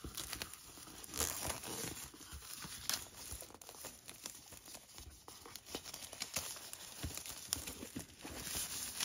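Packaging being ripped open by hand along its tear holes, with irregular tearing and crinkling rustles throughout.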